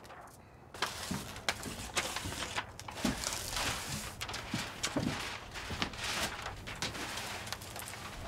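Self-adhesive window flashing tape being peeled and pulled along a sill, its paper backing crinkling and rustling with many small crackles, starting about a second in.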